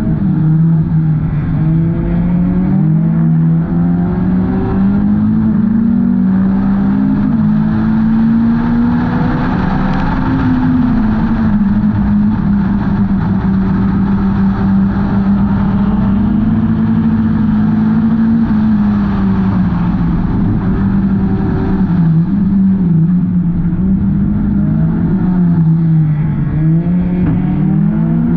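Hornets-class four-cylinder race car engine running hard and loud, its pitch slowly climbing and dipping as the car speeds up and lifts around the oval.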